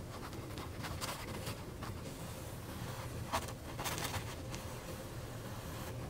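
Faint swishes of a flat watercolour brush laying ink strokes on a stretched canvas: a few short strokes over a steady low hum.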